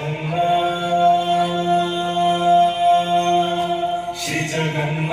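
A solo voice chanting, holding one long steady note with a short break for breath about four seconds in, then carrying on. It is the vocal test track of a DJ sound-system check.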